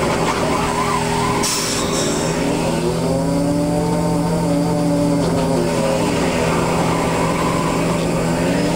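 Fishing boat's engine and hydraulic trap hauler running under load: a steady low drone with a higher whine that rises and falls a few times as the sablefish traps are hauled aboard. A brief hiss about a second and a half in.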